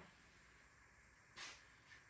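Near silence: room tone, with one faint brief scrape about one and a half seconds in.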